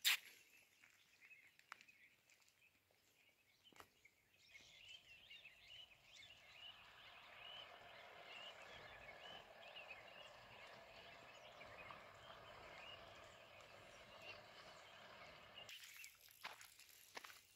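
Faint chirping of many small birds over a steady hiss, starting about four seconds in and cutting off abruptly near the end; a single sharp click at the very start.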